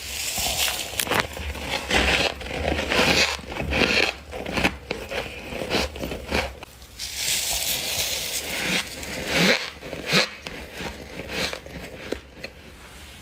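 Close-miked bites and chewing of frost: irregular crunches and crackles, dying away near the end.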